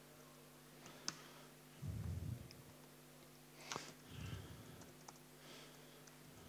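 Laptop keyboard typing: a few faint, scattered key clicks, the sharpest about a second in, with two brief soft low sounds in between, over a steady low hum.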